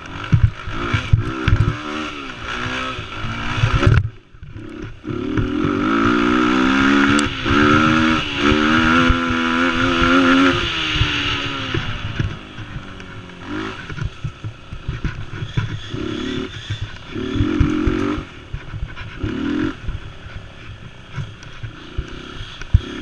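Mini quad's small engine revving up and down under racing throttle. It is held at high revs for several seconds in the middle, then comes in short bursts of throttle, with a brief lift off the throttle early on. Knocks and rattles from the machine bouncing over rough ground run underneath.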